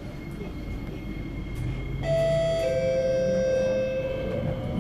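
A train's door-closing chime: a two-note falling chime starts about two seconds in, and the lower note is held to the end, over the steady hum of the stationary train.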